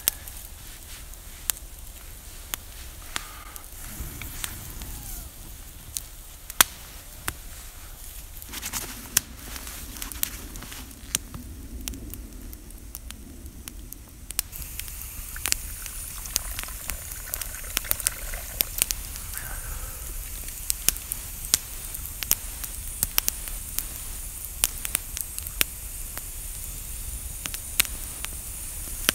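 Wood campfire burning, crackling with frequent irregular sharp pops over a steady hiss.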